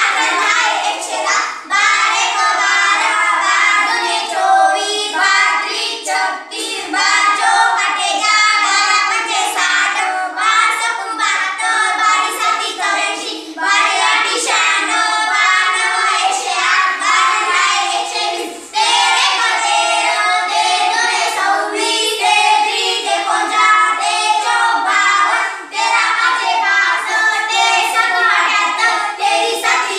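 A small group of children chanting multiplication tables in unison in Marathi, in a sing-song rhythm, with a few short pauses between lines.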